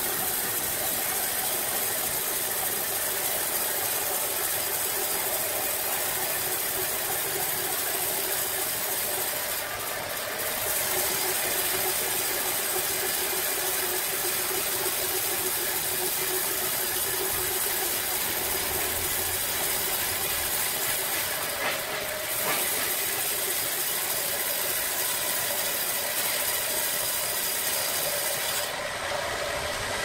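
Large horizontal band sawmill running and cutting lengthwise through a big log. The blade and its electric drive make a steady, hissing mechanical whir.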